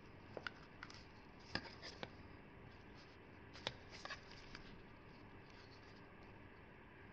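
Scattered light clicks and taps as a small toy tractor part is handled on a steel block, the sharpest about one and a half and three and a half seconds in, over faint room hiss.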